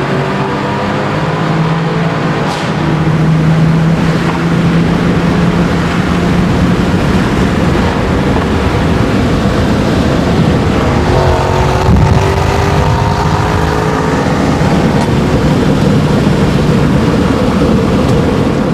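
Mercedes-Benz E63 AMG V8 with an X-pipe exhaust running loud and steady under load, its pitch climbing slowly in the second half as the car gathers speed.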